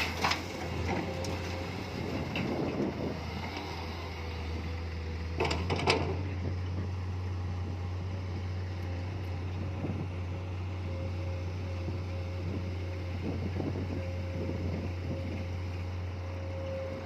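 Komatsu PC210 excavator's diesel engine running steadily with a steady whine over it, and a short loud clatter about six seconds in.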